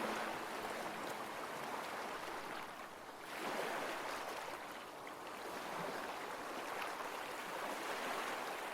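Gentle ocean waves washing in and out, one wash fading about three seconds in and the next swelling up just after.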